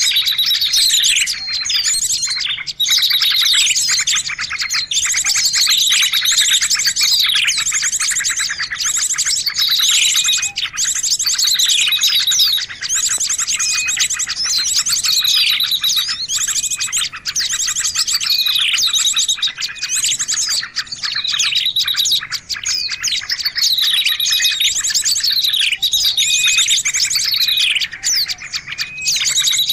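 Recorded lure call of small songbirds: dense, rapid, high chirping and trilling, with a falling call repeating about every two seconds without a break.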